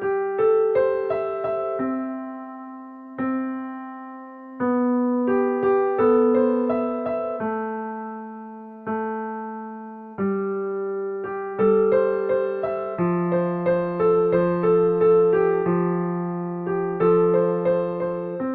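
Piano keyboard playing a slow melody in the right hand over single held bass notes in the left, each note struck and left to die away. The phrases grow busier with more notes in the second half.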